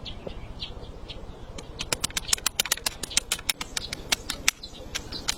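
Raindrops tapping irregularly on a tent, the hits growing thicker about a second and a half in.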